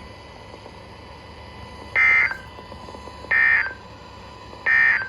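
NOAA Weather Radio EAS/SAME end-of-message data signal: three short, identical bursts of harsh high-pitched digital warble about 1.3 seconds apart, over steady radio hiss. It marks the end of the tornado warning broadcast.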